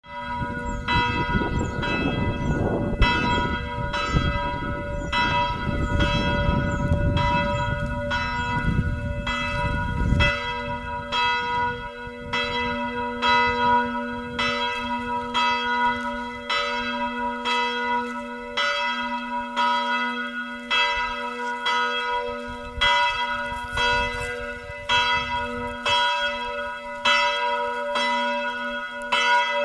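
Church bells of Norrskata church ringing in the holy day from the wooden bell tower, struck steadily a little more than once a second, their tones ringing on between strokes. A low rumble sits under the bells for the first ten seconds or so and stops abruptly.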